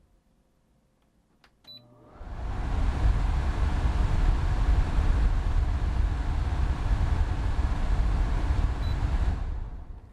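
MyFriend MFAC-B08KR portable air conditioner beeping as it is switched on, then its fan running with a steady rush of air and a deep rumble. A second short beep comes near the end, and the sound dies away.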